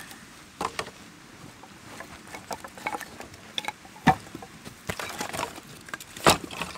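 Dry firewood sticks being handled and laid onto a small campfire, knocking together in irregular clacks, the loudest about four and six seconds in.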